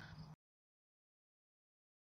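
Near silence: a faint background noise cuts off about a third of a second in, and the audio drops out to dead digital silence as the phone livestream lags and freezes.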